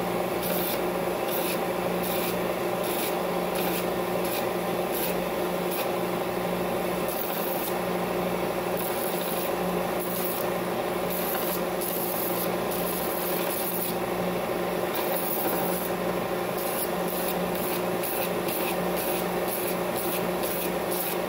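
Bench belt/disc sander running with a steady motor hum while a cast epoxy jewel is pressed against the moving belt, the grinding noise coming and going in short strokes as the surface is abraded to a matte, frosted finish.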